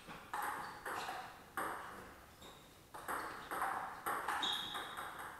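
Table tennis ball being hit back and forth in a rally: sharp, quick pocks of the ball off the rubber bats and the table, with a short break about two seconds in.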